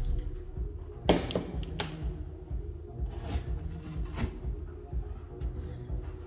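Background music with a steady low beat, over a few short knocks and thuds as a car floor mat is pulled out of the footwell, the loudest knock about a second in.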